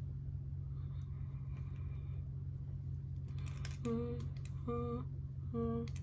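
A makeup brush brushing faintly over the skin, against a steady low hum. Near the end come a few soft clicks, then three short hummed notes about a second apart.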